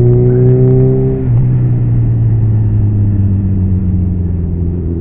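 Suzuki B-King motorcycle's inline-four engine pulling along with its pitch slowly rising, then easing off about a second in and running steadier with wind rush, heard from a camera mounted on the bike.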